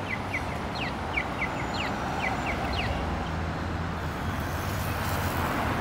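Accessible pedestrian crosswalk signal sounding its walk indication: a quick falling chirp followed by two or three short ticks, repeating about once a second and stopping about three seconds in. Steady city traffic noise runs underneath.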